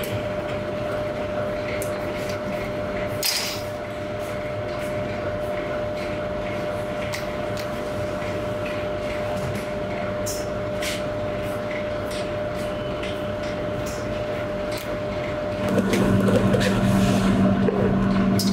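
Steady machine hum with a constant tone, broken by scattered light clicks and taps. About three-quarters of the way through, a louder, lower hum starts and runs on.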